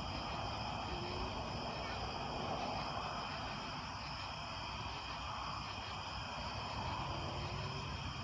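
Crickets and other night insects chirring steadily over a constant low rumble.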